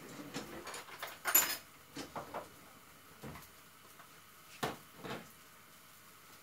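Kitchen clatter of utensils and containers being handled: a string of short knocks and clinks. The loudest is a ringing clink about a second and a half in, followed by a few lighter knocks.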